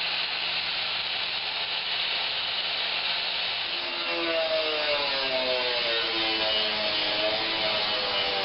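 4.5-inch angle grinder running, then cutting into a sheet-metal rocker panel from about four seconds in, with a wavering whine over the steady hiss of the disc on metal.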